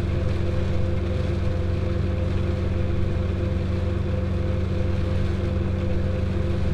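Farm machine's engine running steadily, an unbroken low drone with a constant hum above it.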